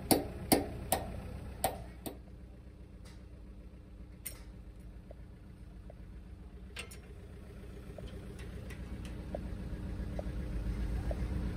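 Sharp metallic taps, about two or three a second for the first two seconds and then only a few scattered ones, from a tool worked against the steel pin cap of an excavator's boom cylinder joint. A steady low rumble runs underneath.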